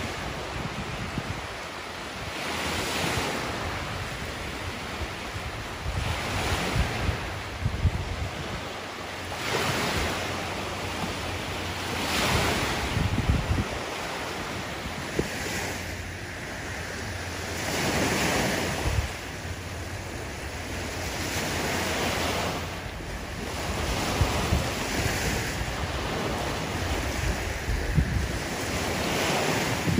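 Small Lake Ontario waves breaking and washing up on a sandy beach, swelling every three seconds or so. Wind rumbles on the microphone.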